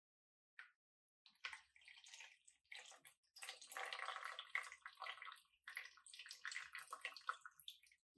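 Faint splashing and trickling of liquid in irregular spurts, starting about a second and a half in.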